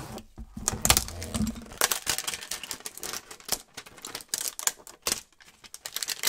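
A cardboard trading-card hanger box being torn open and handled: an irregular run of sharp clicks, crackles and rustles of paperboard and packaging.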